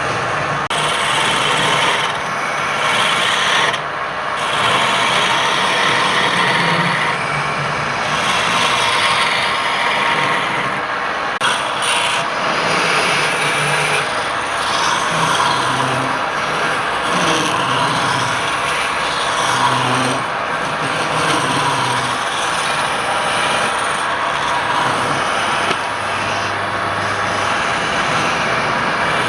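Wood being turned on a lathe: a cutting tool scraping and shaving the spinning workpiece in a continuous rasping noise that changes in texture as the cut moves.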